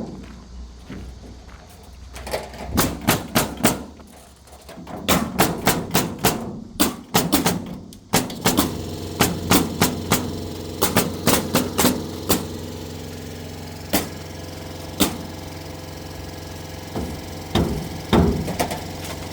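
Hammer driving nails, struck in quick runs of several blows with short pauses between them. A steady machine hum comes in about eight seconds in and runs under the blows.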